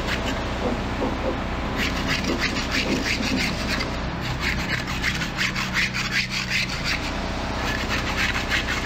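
Barnacles being scraped off a boat propeller: runs of quick, rasping scraping strokes, over a steady low engine hum.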